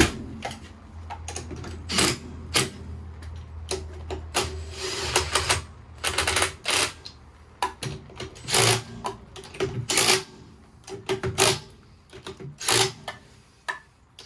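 Cordless impact wrench running on and off in short rattling bursts as it tightens the wheel nuts on a caravan wheel.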